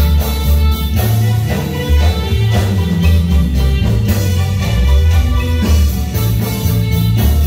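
Live marimba band dance music: pitched mallet and string-like melody over bass and drums keeping a steady beat.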